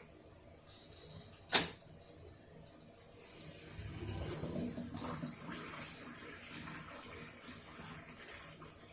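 Hitachi BeatWash BW-V80A washing machine: a loud sharp click about one and a half seconds in, then water rushing through the machine for about five seconds, and a second, smaller click near the end.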